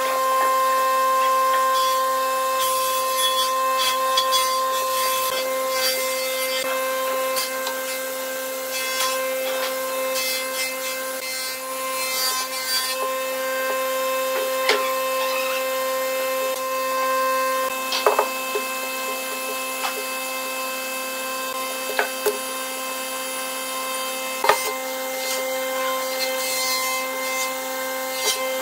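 A flat wooden stick scraping and spreading glue across the sawn faces of log slices in short rubbing strokes. A few sharp knocks sound later on as the slices are set and tapped into a stack. A steady pitched hum runs underneath.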